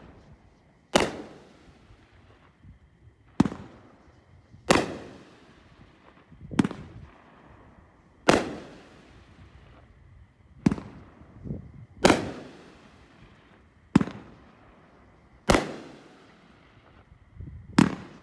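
Cutting Edge Fireworks' 'No Replacements Found' aerial cake firing shell after shell: about ten sharp reports, one every second and a half to two seconds, each trailing off in an echo.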